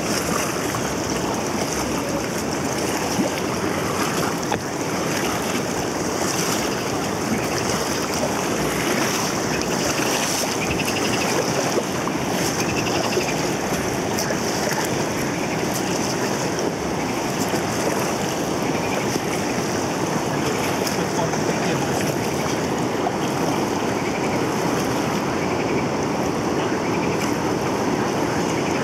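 Steady rush of river water around a moving inflatable raft.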